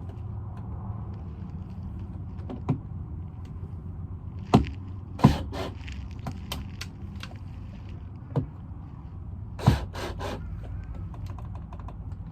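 Sharp clicks and knocks, about seven, from a Ring video doorbell and its mounting hardware being handled and fitted into place. The loudest come a little under five seconds in, about five seconds in and near ten seconds in, over a steady low hum.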